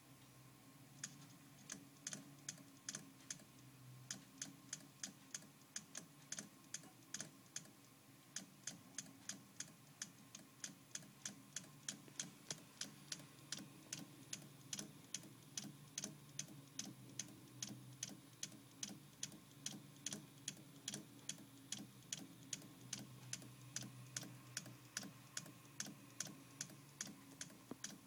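Samsung HD501LJ 3.5-inch hard drive clicking with a rattling "kata-kata" sound, steadily repeating about three times a second over a low steady hum. The uploader believes the cause is a faulty read/write head.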